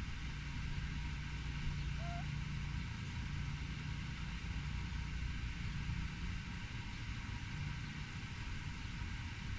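Steady low rumble of distant road traffic, with one brief high chirp about two seconds in.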